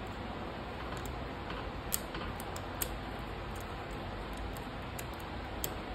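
Light metallic clicks of circlip pliers working a circlip down onto a motorcycle engine's kick-starter shaft. Three sharper clicks come about two, three and five and a half seconds in, over a steady low hum.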